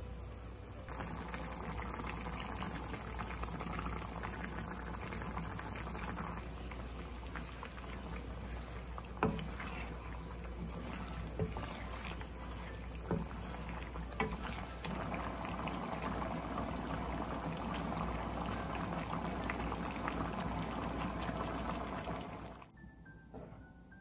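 Mapo tofu sauce of minced pork and tofu cubes bubbling at a simmer in a frying pan, stirred with a wooden spatula that knocks against the pan a few times. The bubbling cuts off suddenly near the end.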